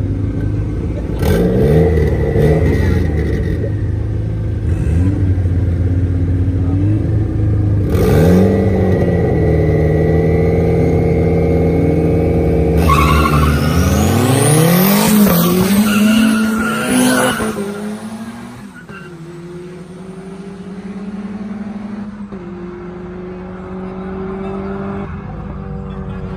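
Two street-race cars' engines being revved at the start line, held at high revs, then launching about halfway through. The revs climb through several gear changes, and the sound fades as the cars pull away down the road, with a fainter engine note still rising into the distance.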